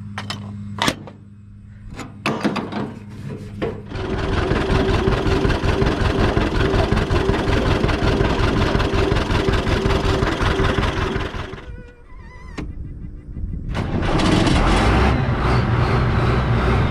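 A few clicks and knocks, then an engine starts and runs with a fast, even pulse for about eight seconds before dropping away. Another engine is running near the end.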